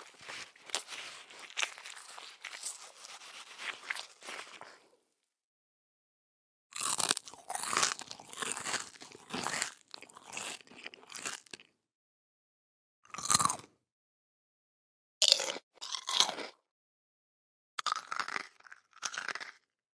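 A person chewing and biting crunchy food. About five seconds of steady crackly chewing, a short silence, then another five seconds of dense crunching. After that come five or so single short crunchy bites, each followed by silence.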